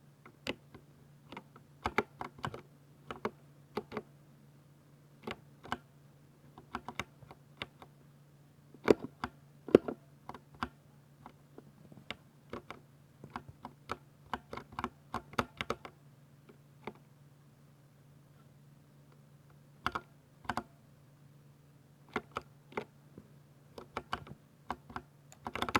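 Typing on a Ducky 60% mechanical keyboard with silver switches: irregular runs of sharp keystroke clicks, pausing for a few seconds about two-thirds of the way through before resuming.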